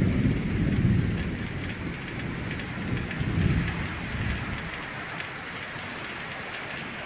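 Steady rain hiss with low rolling thunder that swells near the start and again about three seconds in.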